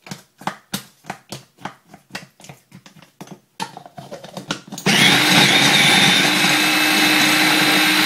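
A spoon scraping and poking a stiff, doughy nut mixture in the plastic bowl of a mini food processor, short strokes about three a second. About five seconds in, the small electric food processor starts and runs steadily, grinding the thick mix.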